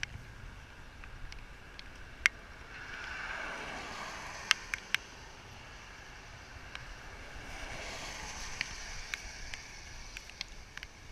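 Tyres hissing on wet pavement as traffic passes, the hiss swelling twice, about three seconds in and again near eight seconds, with scattered sharp clicks over it.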